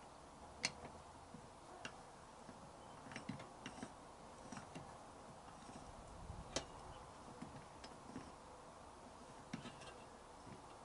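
Faint, irregular clicks and light metallic taps from a hand tool being worked on a bolt on the motorcycle, with two sharper clicks, one under a second in and one about six and a half seconds in.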